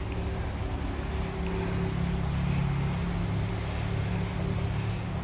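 A steady low engine hum that grows a little louder in the middle and then eases off.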